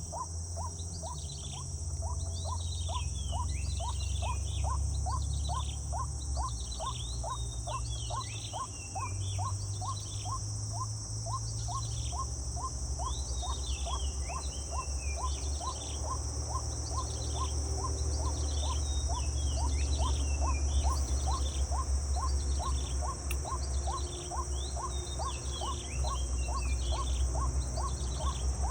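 Outdoor nature ambience: a steady high insect drone, with repeated short falling calls and an even ticking about three times a second, over a low rumble.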